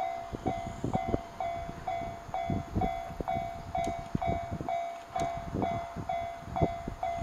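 Japanese railway level-crossing warning bell ringing steadily at about two dings a second, the alarm that a train is approaching the crossing.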